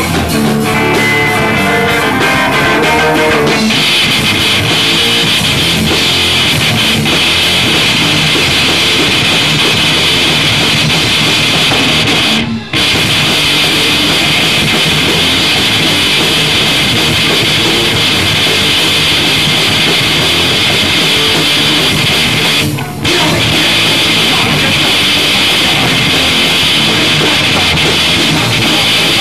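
Live rock band playing loud: electric guitars over a drum kit. The sound gets fuller and harsher about four seconds in. It breaks off for an instant about twelve seconds in and again about 23 seconds in.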